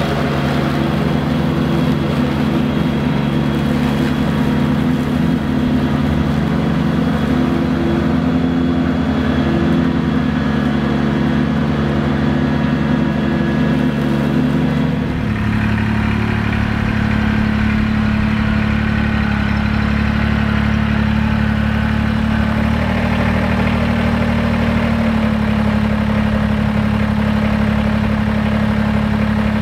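Kubota BX23S subcompact tractor's three-cylinder diesel engine running steadily while it mows with its mid-mount deck. The engine tone changes abruptly about halfway through.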